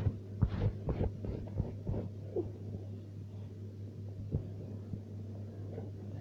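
A quick series of knocks and taps in the first two seconds or so, then one more a little later, over a steady low hum.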